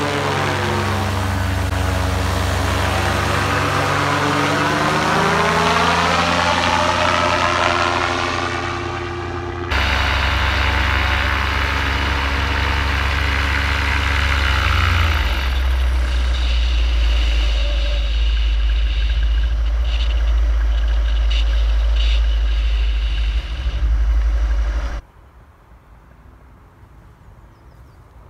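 A paramotor's two-stroke engine and propeller run at full noise as the machine flies overhead, the engine note sliding in pitch as it passes. It is then heard close up from the pilot's seat as a steady drone with a deep hum, stepping down to a lower note about halfway through. Near the end the engine sound drops away abruptly to a quiet outdoor background.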